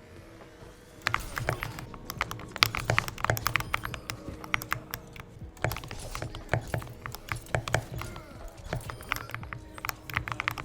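Typing on an Epomaker SK64 mechanical keyboard modded for a better sound, with lubed stabilizers and dampening. Quick, irregular runs of key clicks start about a second in.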